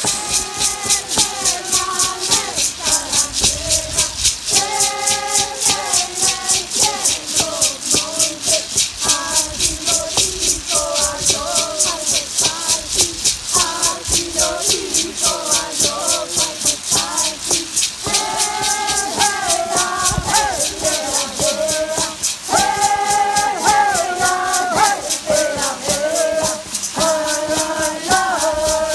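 Voices singing a traditional Mexica ceremonial chant to rattles shaken in a steady beat, about three or four shakes a second.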